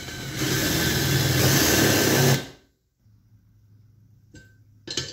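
Cordless drill with a 7/16-inch bit boring out a plug in a VW engine case's oil relief bore, running for about two and a half seconds and then stopping. Two light clicks follow near the end.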